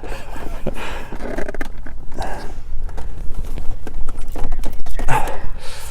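Hard plastic console trim knocking, clicking and scraping in irregular bursts as the cup holder insert is wrestled against its clips by hand.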